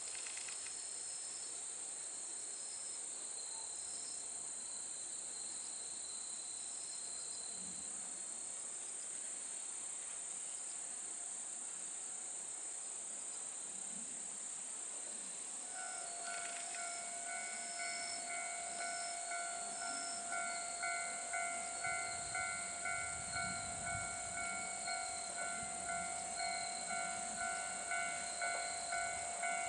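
Crickets and other insects chirring steadily, then about sixteen seconds in a level-crossing warning bell starts ringing in a steady repeating rhythm, a little under two strikes a second. Near the end the low running of the approaching Hojo Railway Flower 2000 diesel railcar rises beneath it.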